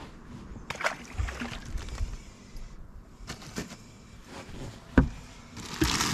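Knocks, taps and rustling of gear being handled on a bass boat's carpeted deck, with the sharpest knock about five seconds in and a burst of hissing rustle near the end.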